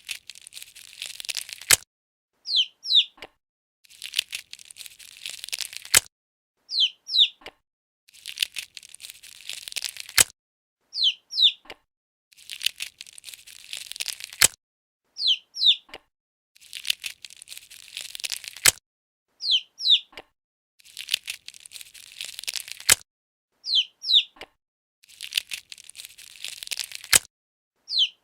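Chick-hatching sound effect: eggshell crackling for about two seconds, ending in a sharp snap, then a quick run of high, falling peeps from the chick. The loop repeats about every four seconds, seven times over.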